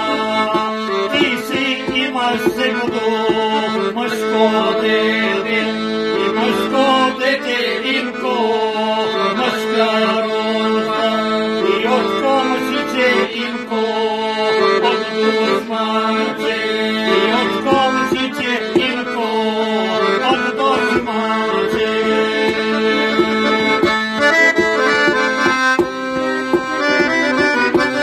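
Piano accordion playing a folk-style tune: a melody on the right-hand keys over steady, held low notes.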